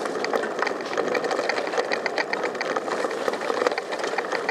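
Bicycle riding over a rough, overgrown dirt trail: a steady rattle with many quick, irregular clicks and knocks as the bike jolts over the bumps.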